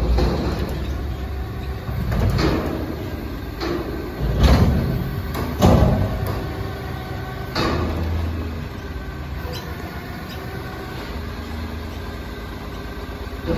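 Front-loader garbage truck's hydraulic forks lowering a raised commercial bin from over the cab, with the engine and hydraulics running steadily. There are about six metal clunks and bangs in the first eight seconds, then a steady hum.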